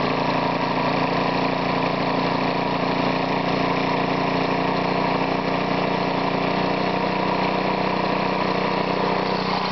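Briggs & Stratton 3.5 hp single-cylinder lawnmower engine running steadily on its governor. It is driving a homemade belt-driven air compressor that is pumping up a tank.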